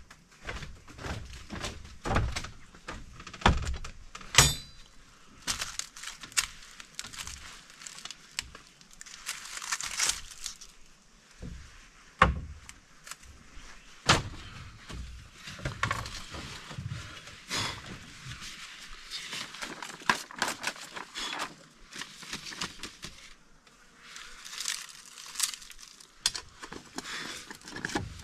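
Scattered knocks and thumps as a pot and a charred leaf-wrapped bundle are set down on a bamboo table, with the dry leaf wrapping crinkling and tearing as it is handled.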